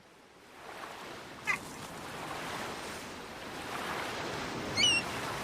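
Night forest ambience fading in: a steady rushing hiss with birds calling over it, a short chirp about a second and a half in and a louder chirping phrase near the end.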